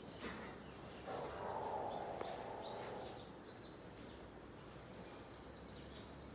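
Faint background of a cricket-like insect trilling in fast, even pulses, which drops out for a few seconds in the middle while a small bird gives a quick series of short falling chirps over a soft rustling hiss.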